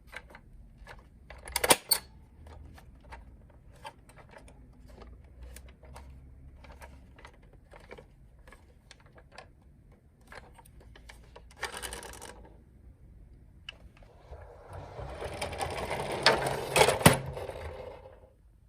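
Toy minicar clicking and clattering in scattered sharp taps, with two louder clicks about two seconds in. Near the end comes a longer rolling rattle of its small wheels that swells and then dies away.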